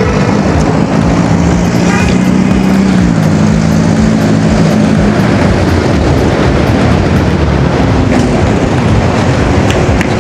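Heavy wind rushing over the microphone of a rider going at speed on an electric unicycle, with a steady low hum through the first half that dips slightly in pitch about three seconds in.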